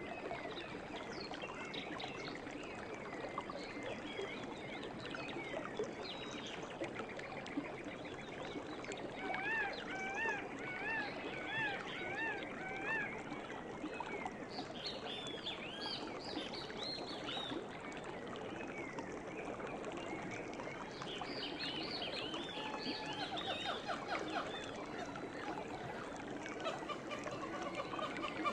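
Stream water running steadily, with birds chirping over it: a run of about five repeated up-and-down notes about ten seconds in, and bursts of high chirps later on.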